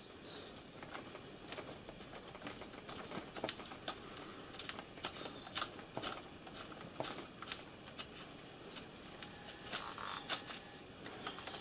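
Faint, irregular clicks and taps of small metal parts and hand tools being handled while an RC car's steering hub is taken apart, with a small flurry of clicks near the end.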